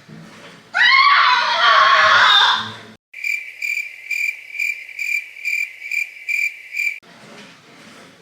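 Animal sound effects: a loud, wavering screech like a monkey's call for about two seconds, then after a sudden cut a high cricket-like chirp, about two chirps a second for four seconds, that stops abruptly.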